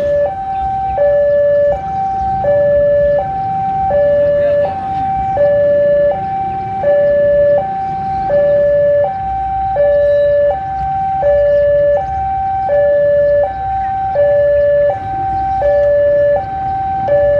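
Electronic two-tone warning alarm, switching evenly between a lower and a higher pitch about every three quarters of a second. Under it is the low rumble of a CC 201 diesel-electric locomotive moving off slowly.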